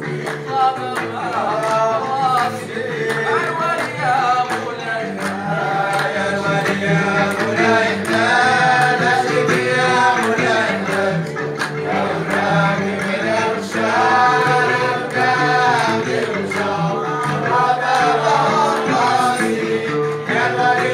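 Gnawa music: men singing together over the plucked bass lines of a guembri, with a steady rhythm of sharp metallic clacks from qraqeb castanets.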